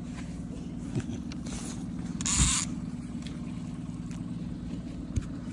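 Boat's outboard motor running steadily at trolling speed, with a brief hiss about two and a half seconds in.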